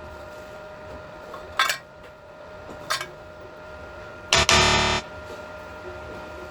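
Background music with steady synthesizer-like tones, broken by three short harsh bursts of noise; the third is the loudest and lasts under a second.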